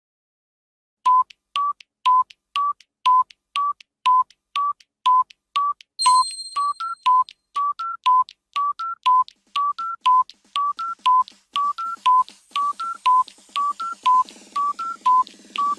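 Countdown timer sound effect: short electronic beeps about twice a second, starting about a second in, at first alternating between two pitches and later stepping up through three.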